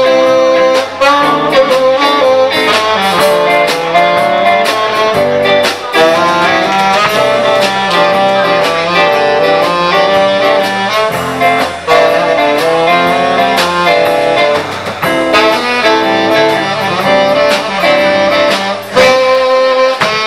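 Small band playing: a saxophone carries the melody over electric guitar, with a drum kit keeping a steady beat.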